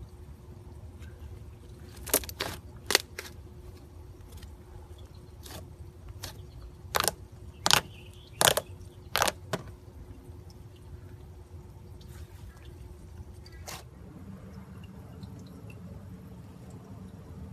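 Slime being squeezed and worked by hand, giving a series of sharp pops and clicks, several in quick pairs, thinning out after about ten seconds.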